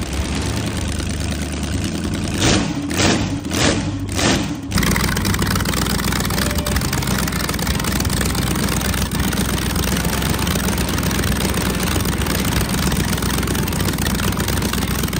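Drag race boat's V8 running through open zoomie headers. Four sharp bangs come between about two and a half and four and a half seconds in, and then the engine runs loud and steady.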